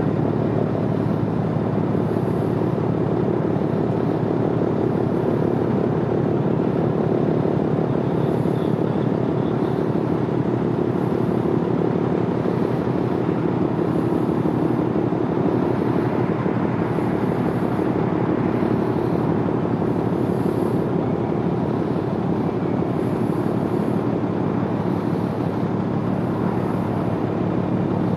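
Steady low drone of a RO-RO car carrier's engines and thrusters as the ship manoeuvres away from the quay, an unchanging hum with no sudden sounds.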